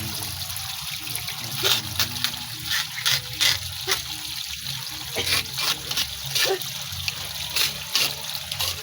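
Water trickling, with many irregular small splashes.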